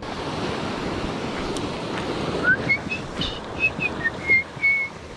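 Steady sea and wind noise. About halfway through comes a short run of whistled notes, each at a different pitch like a little tune, the last one held a bit longer.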